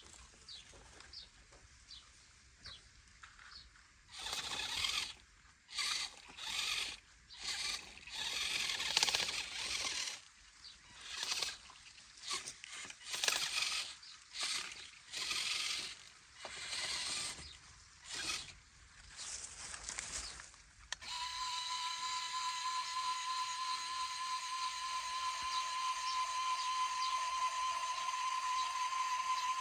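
Small electric motor and plastic gearbox of an RC toy tractor whirring in about a dozen short bursts, each under a second. From about two-thirds of the way through it runs continuously with a steady whine.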